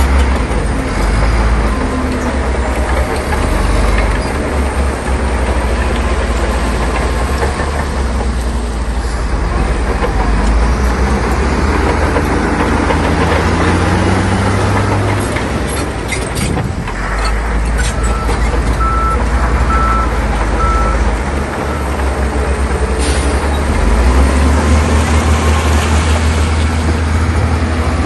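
Heavy diesel earthmoving machinery running steadily with a low engine drone. A few clanks come a little past halfway, then three short high beeps about a second apart.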